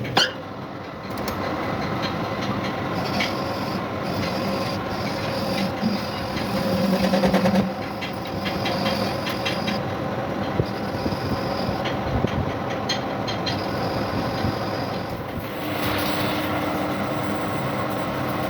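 Workshop machinery running steadily during metal restoration work, with scattered clicks and a louder stretch about seven seconds in.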